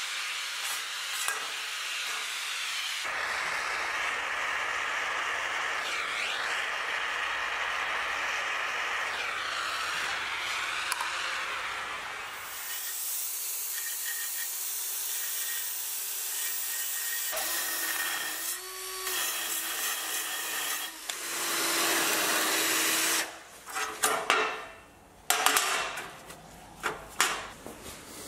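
Abrasive work on a steel tail-light cover, sanding and filing a hard-soldered repair patch flat: long stretches of steady grinding and rubbing noise, with a steady hum for a few seconds past the middle and separate short rubbing strokes near the end.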